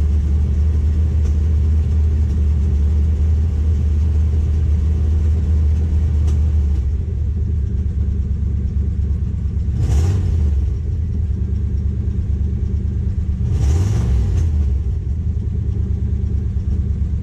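1972 Jeep Wagoneer engine idling steadily, settling a little lower about seven seconds in, with two brief rises in engine note near ten and fourteen seconds.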